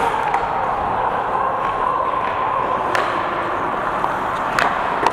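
Ice hockey skates scraping and carving the ice, heard close up from a helmet-mounted camera, with a few sharp clacks about three seconds in and near the end.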